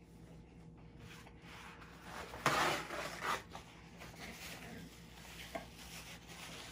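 Paper towel rustling and rubbing as a man wipes his face and mouth, with a loud rough rustle about two and a half seconds in and softer rubbing after it.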